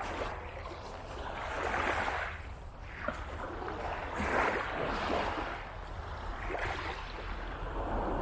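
Small waves breaking and washing up the beach, surging in about every two seconds, over a steady low rumble.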